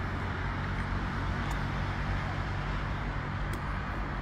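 Steady outdoor traffic rumble with a low hum, with a couple of faint clicks.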